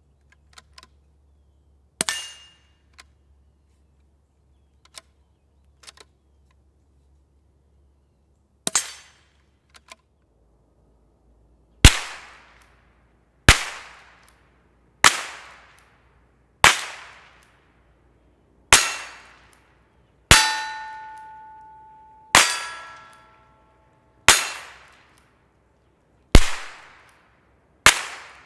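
Two quiet cracks from a bolt-action Ruger Precision Rimfire .22 LR fired through an AB Suppressors MELB-P integrally suppressed barrel, with faint clicks between them. Then about ten much louder, sharp unsuppressed .22 LR shots from a Henry lever-action rifle heard from downrange, one every one and a half to two seconds, two of them followed by a metallic ring.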